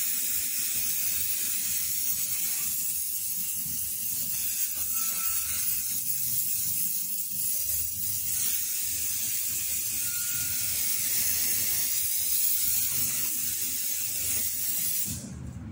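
Aerosol spray can hissing in one long continuous spray as a protective finishing coat goes onto a painted wooden key box, cutting off sharply near the end.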